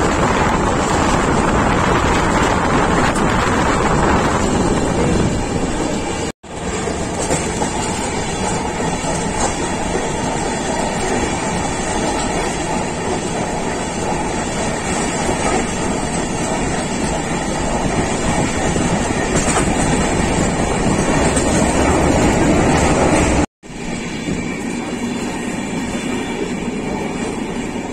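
Coromandel Express passenger train running at speed, heard from on board: a steady rumble and rattle of wheels on the rails. The sound cuts out abruptly for an instant twice, about six seconds in and near the end.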